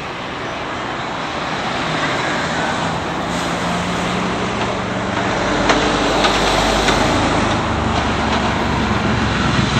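Road traffic: cars passing close by, a wash of tyre and engine noise with a low engine hum underneath, growing louder through the second half.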